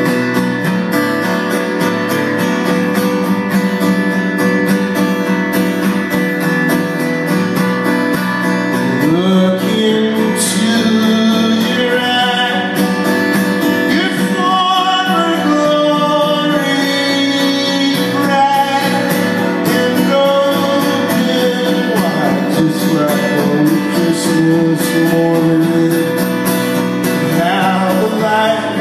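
Acoustic guitar strummed in a steady rhythm. From about nine seconds in, a voice sings a wordless melody over it.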